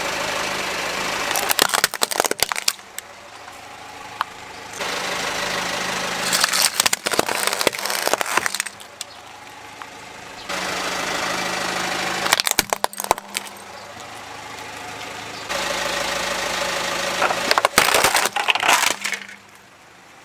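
A car tyre rolling slowly over plastic toys on concrete, with the car's engine running, breaking into clusters of sharp cracking and snapping as the plastic shatters. Four such crushes follow one another, each starting abruptly.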